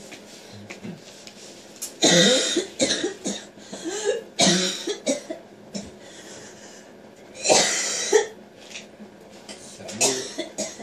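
A person coughing: four breathy coughing bursts, a couple of seconds apart.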